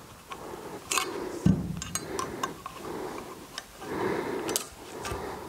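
Irregular light metal clicks as a hex key turns the pointed grub screws of a steering-bearing race puller, tightening them evenly under the lip of the bearing on the steering stem.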